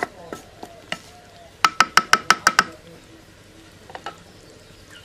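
Wooden spatula knocking lightly in an aluminium curry pot, then tapped quickly against the pot about seven times in one second. Each tap rings with a clear metallic tone.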